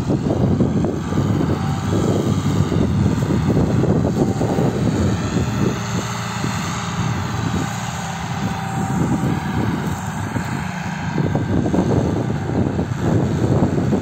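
John Deere 3140 tractor's six-cylinder diesel engine running steadily under load while pulling a three-furrow Vogel & Noot plough through the soil. The drone eases a little in the middle and comes up again near the end.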